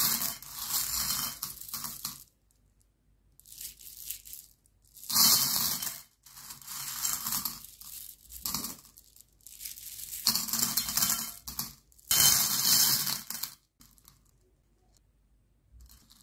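Small sugar-shelled chocolate candies clattering against each other and a plate as hands scoop them up and let them pour back down. The clatter comes in about half a dozen bursts with short pauses between them and dies down to faint clicks over the last few seconds.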